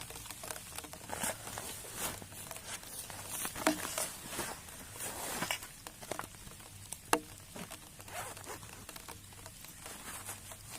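Rain pattering, heard as irregular drops and taps, with a sharper single tap about seven seconds in.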